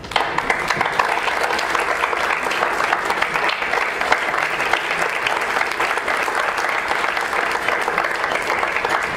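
Applause from an audience and the people on stage: dense, steady clapping from many hands that breaks out suddenly.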